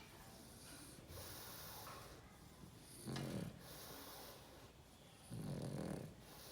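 Dog snoring: two snores, the first about three seconds in and a longer one about two seconds later, with quieter breathing between.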